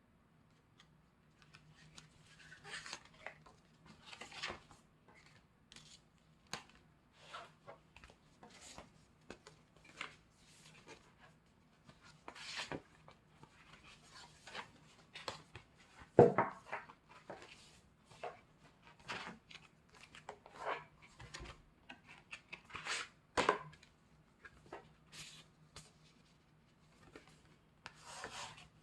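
A K-pop CD album package being unboxed and handled: irregular rustles, taps and clicks of paper, cardboard and plastic, with a sharper knock about sixteen seconds in and another about twenty-three seconds in. A faint steady hum sits underneath.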